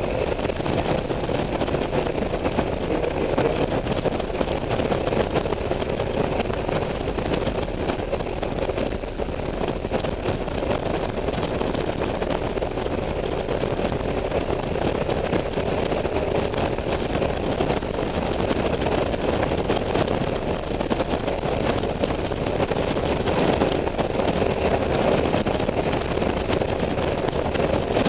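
Honda Silverwing maxi-scooter cruising at road speed: a steady engine drone under wind rush on the microphone.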